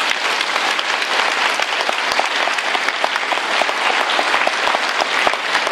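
A large audience applauding, with many hands clapping steadily throughout.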